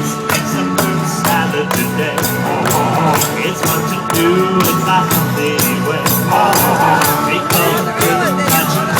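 Live band playing an upbeat song, with a cowbell and other hand percussion striking a steady, regular beat.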